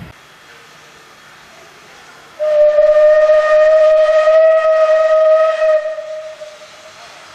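Steam locomotive 433.002's whistle sounding one long, steady note of about four seconds, starting about two seconds in and then fading away.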